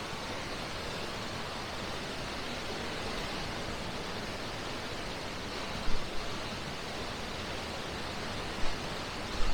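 Steady rushing noise, with a few dull low thumps about six, eight and a half and nine and a half seconds in.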